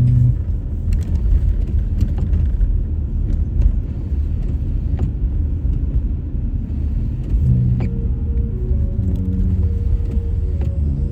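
Car driving on a snowy, icy road: a steady low rumble from the tyres and engine, with a few light clicks. Soft music comes in about seven and a half seconds in.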